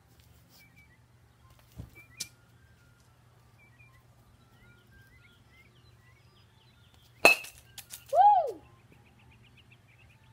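A baseball bat hits a baseball off a batting tee about seven seconds in: one sharp hit with a brief ring. A short rising-then-falling call follows a second later, over faint bird chirps.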